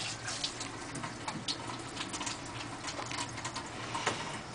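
Irregular light clicks and rustles, scattered a few to the second over a steady low room background.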